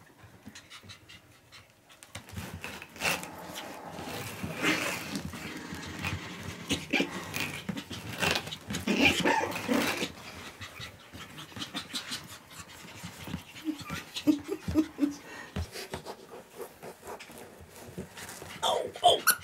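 Two Pomeranian puppies playing, panting and scuffling on a carpet, busiest in the first half and quieter after about ten seconds.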